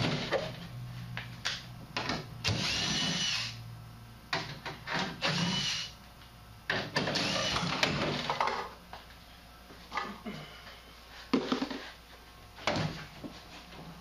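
Cordless drill fitted with a step bit boring through the furnace cabinet's sheet-metal side panel in three short bursts, each with a high whine. Knocks and tool handling fall between the bursts.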